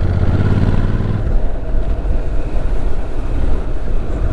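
Motorcycle riding noise: wind rushing over the microphone with the engine's low steady note, clearest for about the first second, then sinking into the wind.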